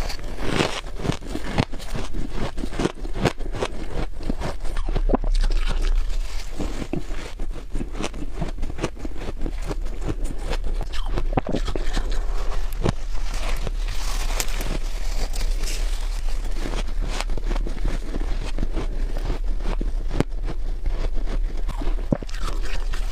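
Soft freezer frost being bitten and chewed, a dense, irregular crunching and crackling with squeaky crunches, going on without pause.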